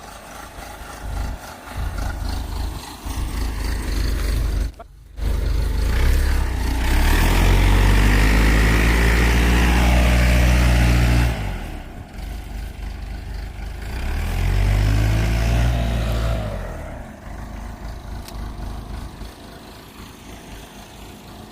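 An engine revving up and running loud for about five seconds, easing off, then revving up again briefly.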